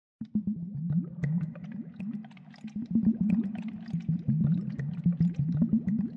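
Water gurgling and bubbling close to the microphone, a churning low burble dotted with many quick pops and plops.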